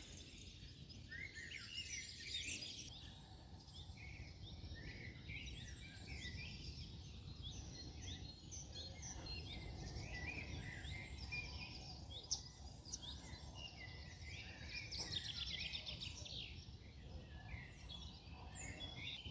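Several small songbirds singing and chirping, many short overlapping calls and trills, over a faint steady low rumble of outdoor background noise. One brief sharp tick sounds about twelve seconds in.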